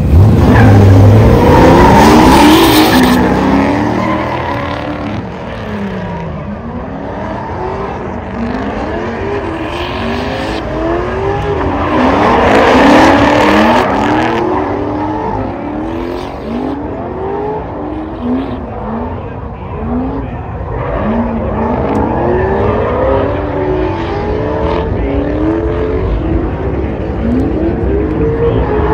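Two drift cars, one a Corvette, launching in tandem and drifting: their engines rev up and down over and over, with tyres squealing. The launch in the first few seconds and the pass at about 12 to 14 seconds are the loudest moments.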